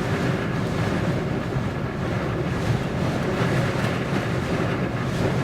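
Gale-force wind buffeting a parked vehicle, heard from inside the cabin as a steady, deep rushing noise.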